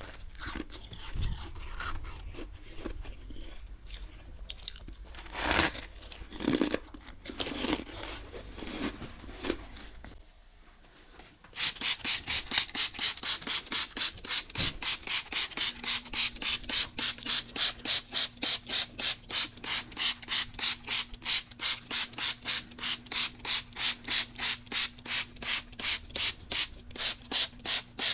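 A metal spoon scraping and scooping packed freezer frost in irregular strokes. After a short pause, a trigger spray bottle is pumped rapidly at the frost wall, giving an even run of hissing sprays, about three a second. A faint steady hum joins partway through.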